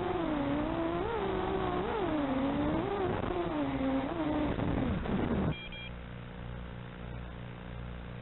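210-size FPV racing quadcopter's motors and propellers whining, the pitch rising and falling in short blips with the throttle. The whine stops suddenly about five and a half seconds in as the motors shut off, leaving a steady electrical hum.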